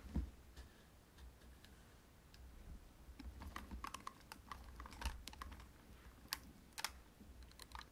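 Quiet handling of a pair of Cresyn CS-HP500 headphones by fingers: a low thump just after the start, then from about three seconds in a run of light taps and clicks on the plastic earcups and frame.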